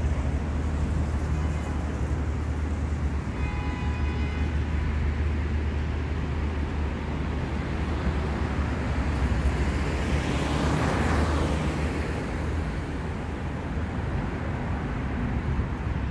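City street traffic noise: a steady low rumble of engines and tyres, with one vehicle passing close and swelling, then fading, about ten seconds in. A brief pitched tone sounds over it about three and a half seconds in.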